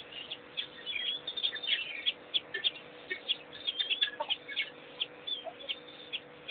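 Chorus of small birds chirping and twittering, many short high calls overlapping several times a second, over a faint steady hum.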